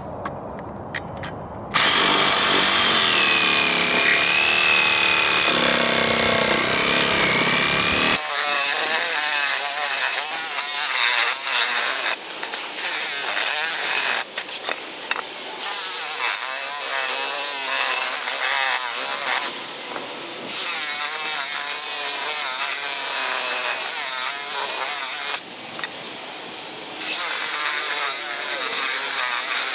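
Craftsman reciprocating saw cutting through a wooden post, the motor running with a wavering pitch as the blade bites. It starts about two seconds in and stops briefly a few times during the cut. The blade is not the best one for the job.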